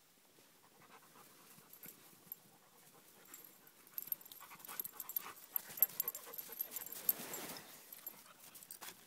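A husky and a malamute play-wrestling, panting, with scuffling and crunching in the snow that grows busier and louder from about four seconds in.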